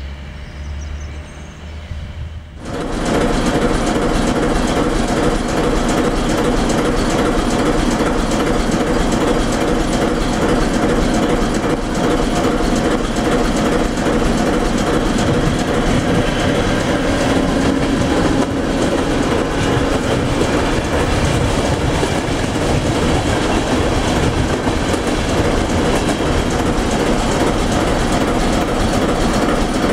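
ČD class 749 diesel locomotive running close by, a loud steady engine drone, with train wheels clattering on the rails. The sound cuts in suddenly about three seconds in.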